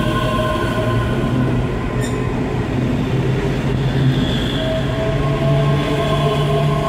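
ScotRail Class 385 electric multiple unit moving past the platform, its traction equipment giving a whine of several steady tones over the rumble of the wheels. A further, lower whine tone comes in about two-thirds of the way through, and there is a single brief click about two seconds in.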